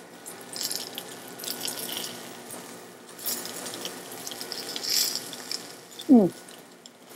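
Crunching of raw cabbage-and-apple coleslaw being chewed, in irregular crisp bursts, with a brief rising hum about six seconds in.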